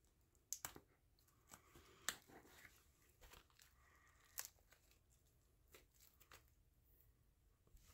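Faint tearing and crinkling of a vinyl record's packaging, plastic shrink wrap and a cardboard mailer, as it is pulled open, with a few sharp crackles about half a second, two seconds and four and a half seconds in.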